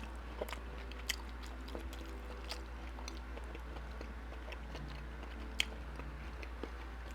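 A person chewing food close to the microphone, with scattered small wet mouth clicks.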